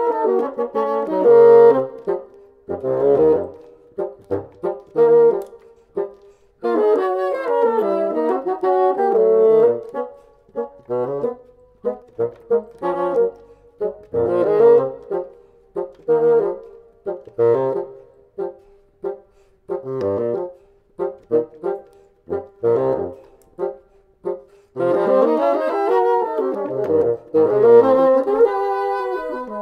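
Two bassoons playing a groove-oriented contemporary classical duet. Full passages alternate with stretches of short detached notes. The texture thickens again from near the end.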